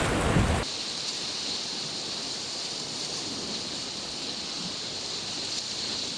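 Wind buffeting the microphone over surf on a rocky shore. Under a second in, it cuts off suddenly to a quieter, steady hiss of the sea with a constant high-pitched tone running through it.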